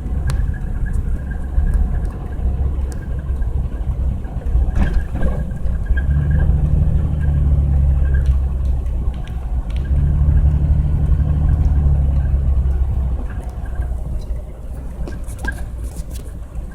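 Honda Passport SUV driving on snow-covered roads, engine and tyres making a steady low rumble. The engine note grows louder and steadier for several seconds in the middle, with a short dip partway through, then eases off near the end.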